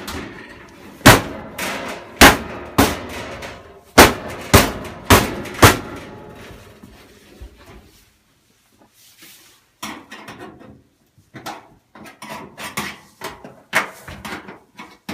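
Seven loud blows in about five seconds on a clothes dryer's sheet-metal back panel, knocking it in so the drum stops scraping metal on metal. Softer knocks and clatter follow.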